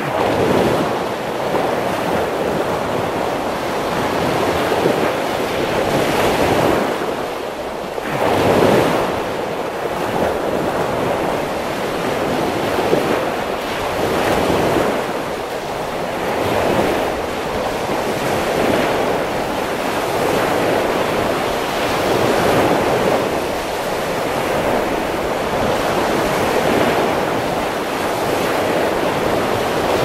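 Ocean surf: waves breaking and washing in as a continuous rush that swells and eases every few seconds, with one larger wave surging about eight seconds in.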